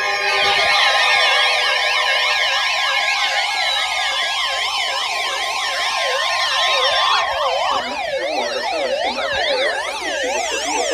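Electronic emergency-alert siren: many siren tones warbling quickly up and down at once, with slower falling tones sliding under them. It sounds as a severe thunderstorm warning is issued.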